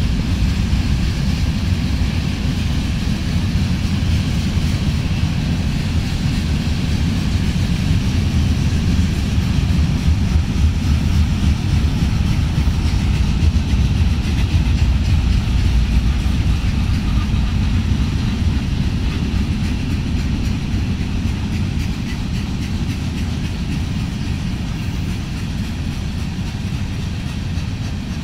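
Union Pacific freight train rolling past at close range: a steady, loud rumble of wheels on rail that eases slightly near the end.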